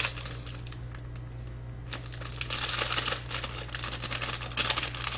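Plastic snack packet of gummy candy being handled, its wrapper crinkling with a run of light clicks that gets busier about halfway in.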